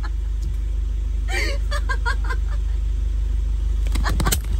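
A light-truck motorhome's engine running steadily at low speed, heard from inside the cab as a continuous low hum. A brief voice is heard about a second and a half in, and a few sharp clicks come near the end.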